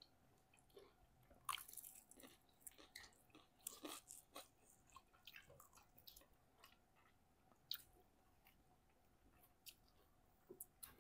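Faint, close-up chewing of food: irregular soft mouth clicks and crunches, busiest in the first few seconds and sparser after.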